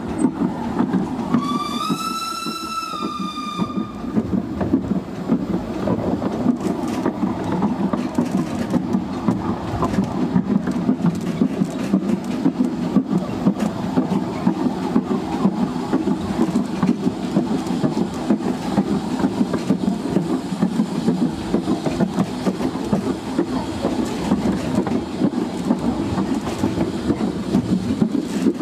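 Narrow-gauge passenger carriage running along the track: a steady rumble with a constant rapid rattle and clatter of wheels on rails. About a second in, a steam whistle sounds once for about two and a half seconds, its pitch rising slightly at the start.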